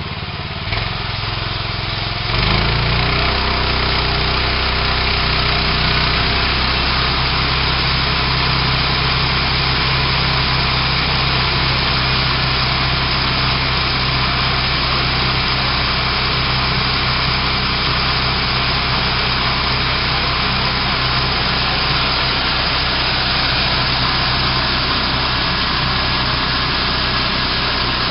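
Small gasoline engine driving a homemade bandsaw mill. It opens up about two seconds in, its pitch rising, then runs steadily under load as the blade is pushed through a log.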